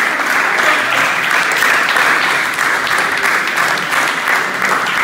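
A group of people applauding: many hands clapping in a steady, dense patter.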